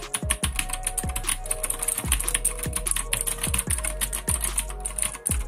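Magic Refiner MK17 mechanical keyboard with blue switches being typed on: a fast, irregular run of clicky keystrokes, several a second. The clicks are a little quieter than typical blue switches.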